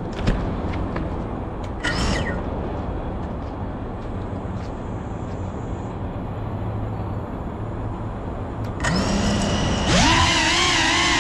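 Steady outdoor noise, then about nine seconds in the FPV quadcopter's electric motors spin up with a rising whine. They settle into a loud whine whose pitch wavers slightly as the drone readies to take off.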